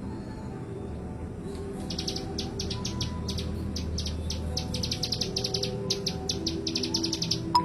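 Ciblek gunung, a prinia, singing a rapid series of sharp, high, clipped notes, about six a second, starting about one and a half seconds in.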